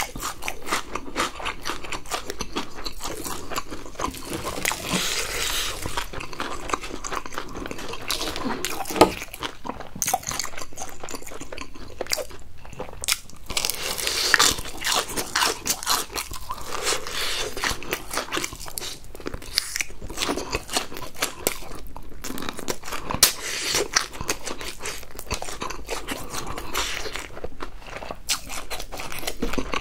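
Close-miked crunching and chewing of crispy fried chicken: repeated bites through the crunchy coating, with the loudest clusters of crunches near the start, midway and about three quarters through.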